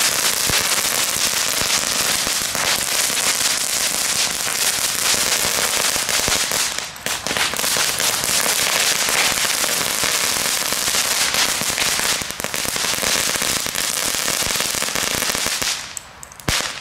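A string of small firecrackers going off in an unbroken rapid crackle of tiny bangs, letting up briefly about 7 and 12 seconds in and stopping just before the end.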